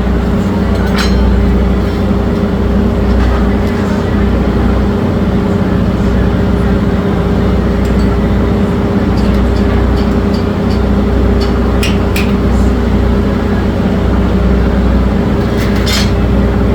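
A steady machine hum, constant in pitch and level, with a few light metallic clinks about a second in, near 12 seconds and near the end, typical of tools on metal.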